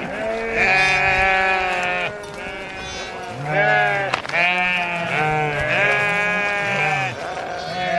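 A flock of sheep bleating, many calls overlapping at once.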